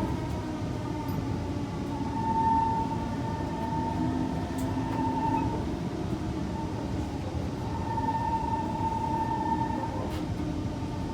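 Cabin noise inside a Kawasaki C151 metro train: a steady low rumble with a steady mid-pitched whine that fades in and out in stretches of a few seconds, and a couple of faint clicks.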